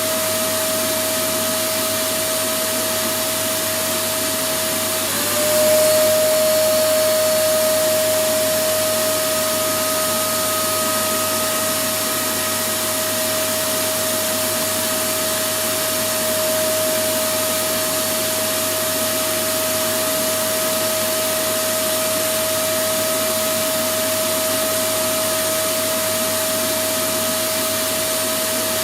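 Electric vacuum cleaner running steadily: an even rushing noise with a steady whine. About five seconds in, the whine dips briefly and the sound swells a little before settling again.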